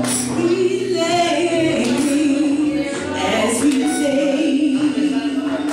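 A woman singing solo R&B-style into a microphone, sliding through runs of notes and then holding a note with a wide vibrato, over a keyboard accompaniment.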